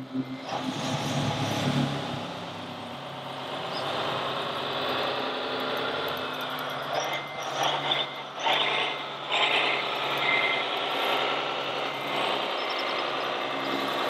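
Radio-controlled scale-model Mercedes tractor unit driving, its electric drive and gears whirring over a steady low engine-like hum. The whirr grows louder for a few seconds around the middle.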